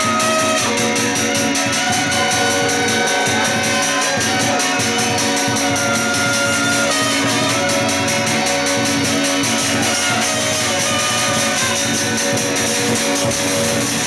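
A Chinese ritual wind-and-percussion band: several suona shawms play a shrill, wavering melody together over fast, even cymbal strokes and drum beats.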